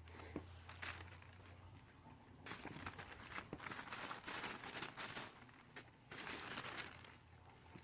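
Tissue paper crinkling and rustling faintly as a cat paws at it, in two stretches of rustling with a short pause between.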